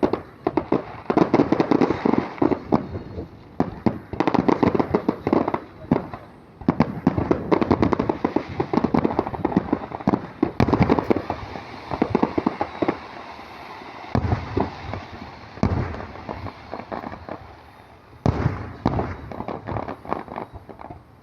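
Aerial fireworks going off in rapid volleys of sharp cracks and bangs. The volleys come in dense bouts, thin out a little past the middle and pick up again near the end.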